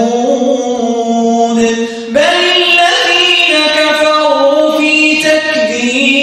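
A man reciting the Qur'an in melodic tajweed chant, drawing out long held notes, with a short breath about two seconds in before the next phrase begins.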